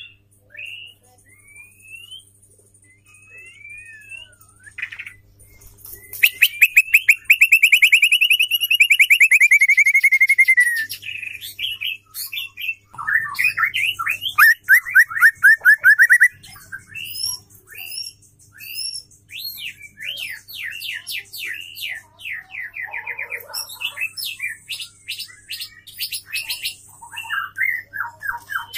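Female white-rumped shama calling and singing. Short scattered chirps give way, about six seconds in, to a loud, very rapid trill lasting about four seconds; a second fast rattling series follows a few seconds later, then varied whistled phrases.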